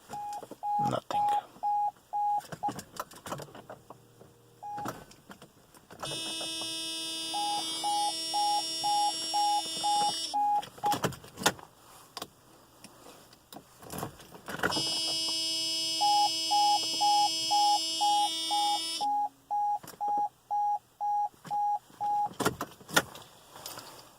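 Warning beeps from a 1993 Mercedes-Benz SL500 (R129) that will not start: short beeps at one pitch, about three a second, in several runs. Sharp clicks fall between them, and twice a louder steady buzz of constant pitch holds for about four seconds under the beeping.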